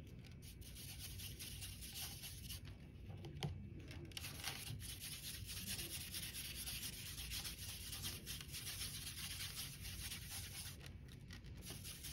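A paintbrush scrubbing and swirling watercolor paint with water on a foam plate palette: a faint, steady rubbing.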